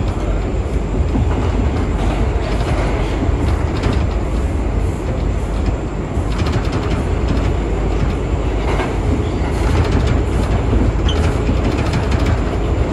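R179 subway train running at speed through the tunnel, heard from on board: a steady, loud rumble from the wheels on the rails, with stretches of rapid clicking as the wheels pass over rail joints in the second half.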